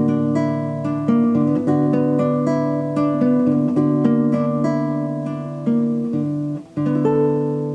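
Background music: a plucked acoustic guitar playing a slow, gentle melody over held bass notes, with a short break a little before the end before a chord rings out.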